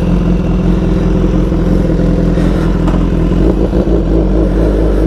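BMW S1000 XR's inline-four engine idling loud through its full exhaust system, a steady deep note.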